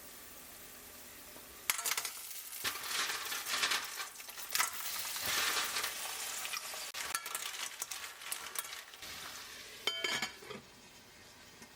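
Food sizzling in a hot pan as it is stirred, starting about two seconds in, with a few clinks of utensils against the pan near the end.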